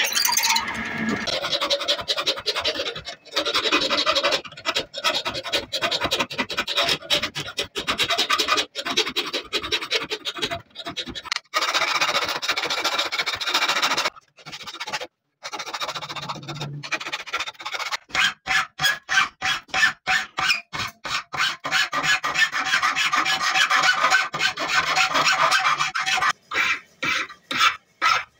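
Hand file rasping on leaf-spring steel in repeated push strokes, with a short pause about halfway, then a steady rhythm of about two strokes a second.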